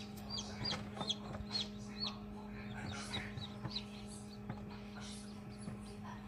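Newly hatched Wyandotte chick peeping: a quick series of short, high, falling peeps that thin out after about three and a half seconds, over the steady low hum of the egg incubator.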